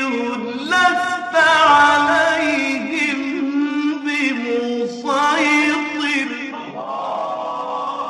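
A man reciting the Quran in a melodic, chanted style, drawing out long held notes that waver and turn in pitch.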